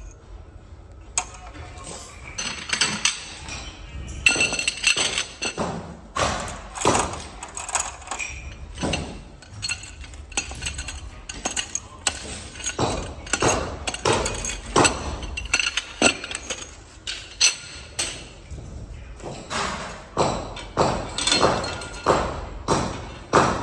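Metal-on-metal clinks and knocks from handwork with tools and parts: irregular strikes, some in quick runs, each with a brief ringing edge.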